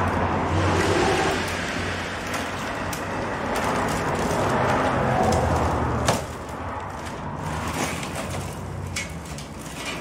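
Willow rods rustling and scraping against each other as a willow basket is woven and handled, over a steady low hum, with scattered clicks. A sharp knock comes about six seconds in, and after it the sound is quieter.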